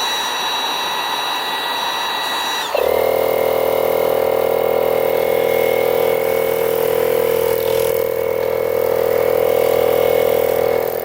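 Portable 12-volt tire inflator powered from a car's outlet: a steady hum starts suddenly, and about three seconds in the compressor's motor and piston start and run on in a loud, steady buzzing drone.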